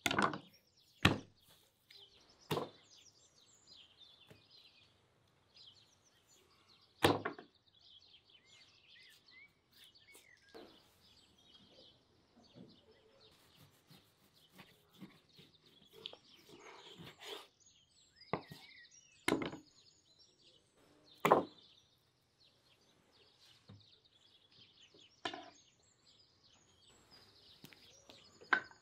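A knife cutting beef short ribs apart between the bones and striking a wooden cutting board: sharp knocks every few seconds at uneven intervals. Small birds chirp steadily in the background.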